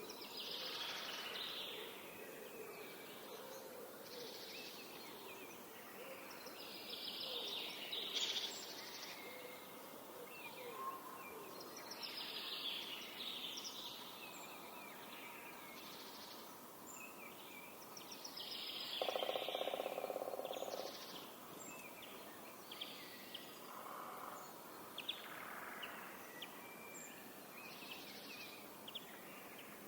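Birds singing in a forest, with short repeated song phrases every few seconds. About two-thirds of the way through, a woodpecker drums in one rapid burst lasting a couple of seconds, the loudest sound here.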